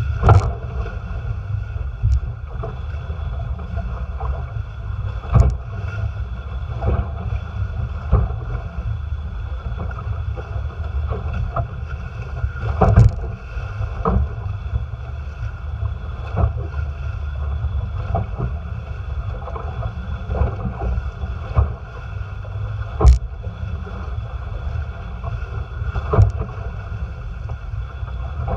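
Water rushing along the hulls of a Tramp folding trimaran sailing fast, with wind buffeting the microphone. Irregular sharp slaps of water and spray hit the hull and camera every few seconds.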